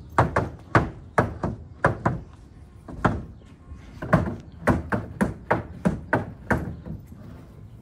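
A rapid, uneven series of some twenty sharp knocks and bangs, as of hard objects being struck or dropped, each dying away quickly.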